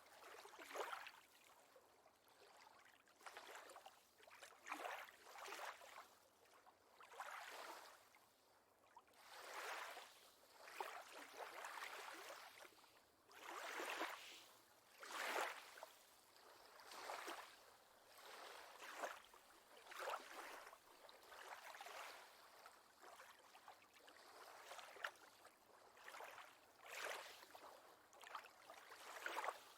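Faint lake water lapping, in soft swells that come and go every second or two.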